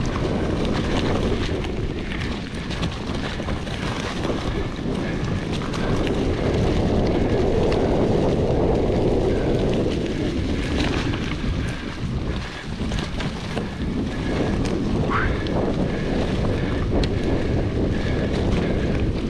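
Wind buffeting the action camera's microphone over the rumble and rattle of a full-suspension mountain bike riding fast over a rough forest trail, with many small clicks and knocks from the bike.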